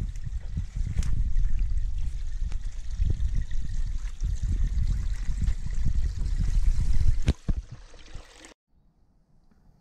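Spring water trickling and splashing out of a small wooden trough onto stones, over a low, uneven rumble with occasional knocks. It cuts off suddenly about seven seconds in, and near silence follows.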